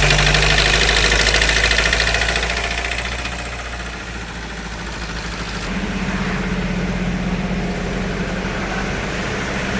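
Hyundai Creta diesel engine held at raised revs, then dropping back to a steady idle about four seconds in, with a rattling knock from inside the engine. The mechanic traces the knock to a seized, wrongly fitted timing chain tensioner that has let the valve timing slip.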